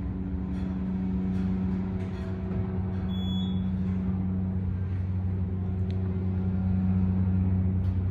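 A KONE hydraulic elevator travelling up, with a steady low hum from the hydraulic pump and the moving cab. A short high beep sounds about three seconds in.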